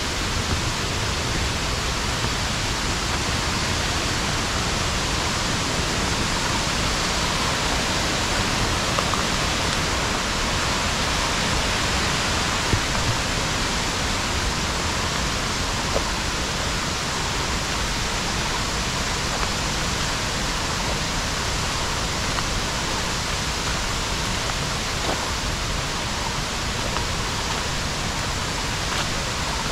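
Waterfall: a steady, unbroken rush of falling water, with a few faint ticks.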